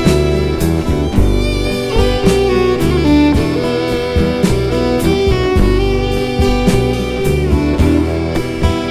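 Instrumental break in a folk-style song, with a melody line over strummed guitar and a steady beat.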